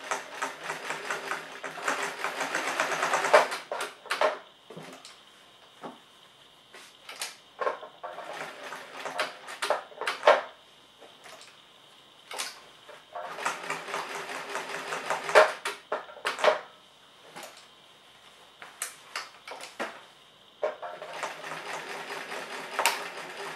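Bernina Record 930 domestic sewing machine stitching fabric in three short runs: one at the start, one in the middle and one near the end. Scattered clicks and knocks fall in the pauses between runs.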